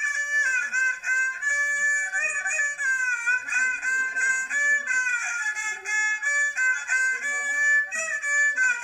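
Lao khaen (bamboo free-reed mouth organ) and so (two-string bowed fiddle) playing together in the Xieng Khouang khap style: the khaen holds reedy chords while the fiddle line slides and bends in pitch above and through them.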